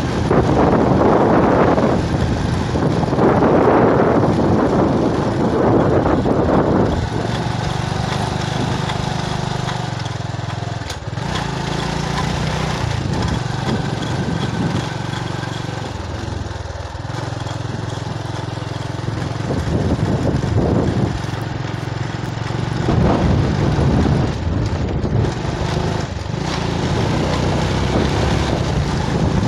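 Small motorbike engine running steadily under way, its note dipping briefly twice near the middle, with wind buffeting the microphone, heaviest for the first several seconds and again about two-thirds of the way through.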